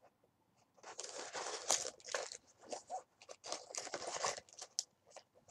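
Hands rummaging in a small shiny cosmetic bag, its material and the product packaging crinkling and rustling in irregular bursts from about a second in.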